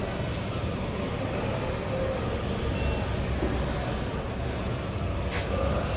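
Steady machinery noise: a low rumble with hiss and a faint high, thin whine, with no distinct starts or stops.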